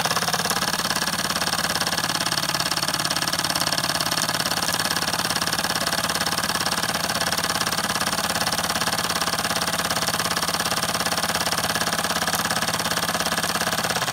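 Wilesco D10 toy stationary steam engine running steadily under steam, a fast even mechanical beat, loud with its vibration rattling on the ceramic tile it sits on.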